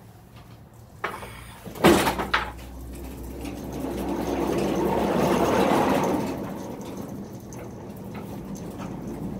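Heavy sawmill frame being shifted on a dump trailer: a loud bang about two seconds in with a few smaller knocks, then a scraping, sliding noise that swells and fades over a couple of seconds.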